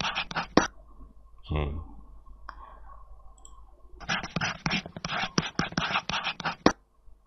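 Pen-on-paper handwriting sound effect playing back from a slide: quick scratching strokes, one run stopping about half a second in and another running for nearly three seconds from about four seconds in.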